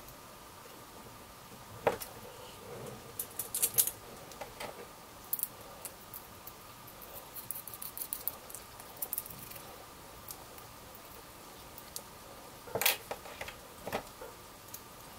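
Small metal parts handled and fitted together by hand: scattered light clicks and ticks of a screw, a perforated steel plate and small abrasive cutting discs, with a few louder knocks, the loudest near the end as parts are set down on a wooden tabletop. A faint steady hum sits underneath.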